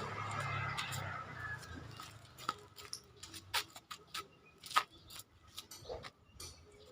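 Irregular light clicks and taps over a quiet background, with a faint hazy murmur and low hum in the first second or so.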